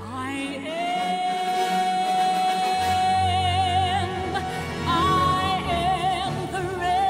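Background gospel song: a female singer rises into one long high note and holds it, the note wavering with vibrato in the second half, over accompaniment whose bass comes in about three seconds in.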